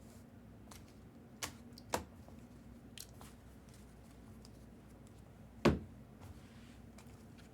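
Handling of trading cards and their packaging on a table: a few scattered clicks and knocks, the loudest a sharp knock about five and a half seconds in, over a faint steady hum.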